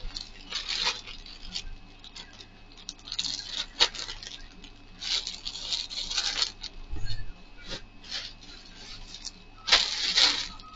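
Clear plastic clothing bags crinkling in several bursts as they are handled, the loudest near the end.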